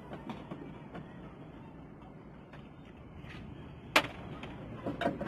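Hand tools clicking and tapping against a car's rear door and door pillar while the door is being taken off. It is mostly quiet, with one sharp click about four seconds in and a few lighter clicks near the end.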